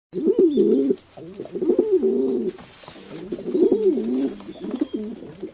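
Pigeons cooing: low, warbling coos in several back-to-back bouts of about a second each, with short pauses between them.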